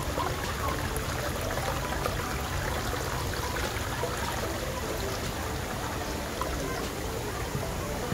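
Water trickling steadily over rocks and splashing into a shallow pool.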